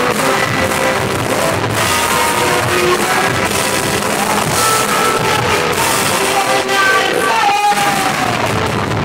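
Live band playing a rock song, a woman singing over electric guitar, keyboards and drums, in a crowded, lo-fi audience recording. About seven and a half seconds in, a held sung note slides down and the music breaks off for a moment before carrying on.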